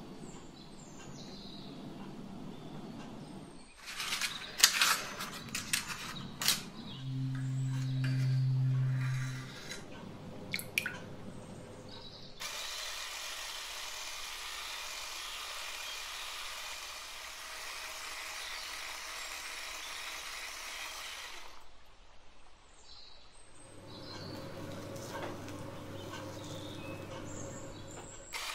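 Kitchen preparation sounds. Groups of sharp clicks and taps are broken by a steady low hum lasting about two seconds, followed by a long steady hiss of about nine seconds and then a quieter, lower hum.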